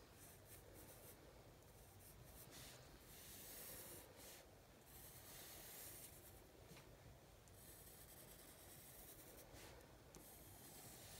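Faint scratching of a wooden pencil on drawing paper as lines are sketched, in uneven strokes of a second or two with short pauses between them.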